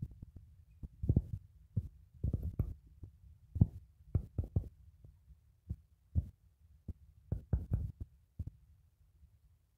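Irregular low thumps and rumble on the microphone, a dozen or so dull knocks at uneven intervals, fading toward the end.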